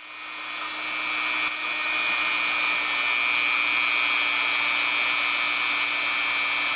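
Dremel rotary tool running at high speed, spinning a short length of 1.75 mm 3D-printer filament pressed against a 3D-printed plastic part to friction-weld it. A steady high-pitched motor whine that grows louder over the first second or two, then holds level.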